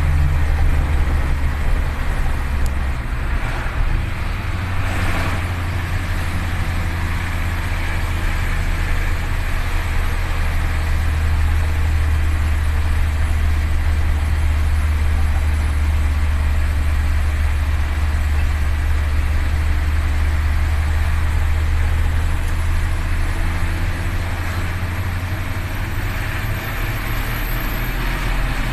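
Steady engine drone and road noise inside a moving vehicle's cabin, with a strong low hum.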